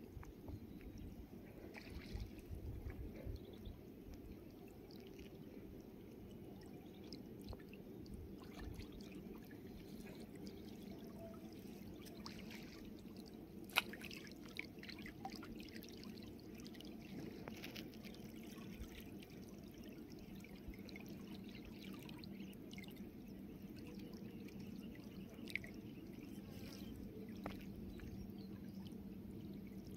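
Quiet river water lapping and trickling around a person wading waist-deep, over a steady low drone, with scattered small ticks and one sharp click about halfway through.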